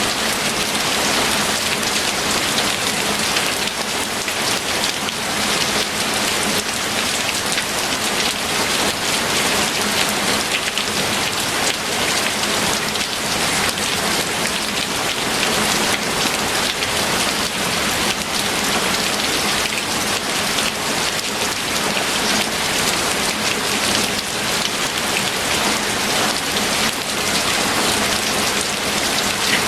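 Steady, heavy rain falling and pattering on a surface, a dense even hiss of drops that doesn't let up.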